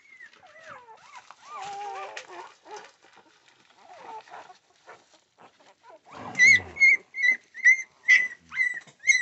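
Newborn American Pit Bull Terrier puppies, about four or five days old, whining: faint wavering whines at first, then from about six seconds in a run of sharp high squeaks, roughly two a second.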